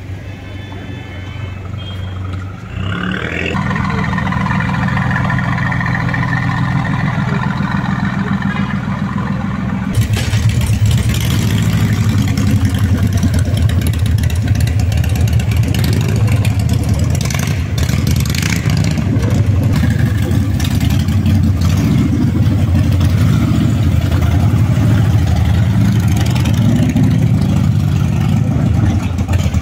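A steady engine idle for the first several seconds. About ten seconds in, a custom bagger motorcycle's V-twin engine takes over, running loudly with the revs rising and falling.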